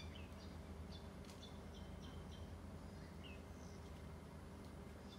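Faint background birdsong: scattered short, high chirps and a couple of brief downward-sliding calls, over a steady low hum.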